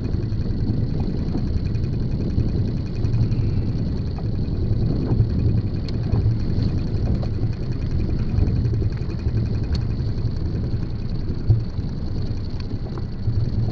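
Steady low rumble aboard a small inflatable boat at sea, with a faint steady high whine over it and a couple of faint clicks.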